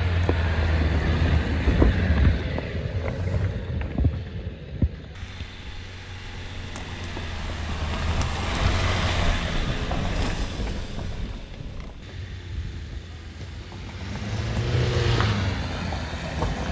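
Dacia Duster 4x4 engine pulling at low speed up a rocky forest track, with scattered knocks of the tyres on stones. The engine swells twice, about halfway through and again near the end.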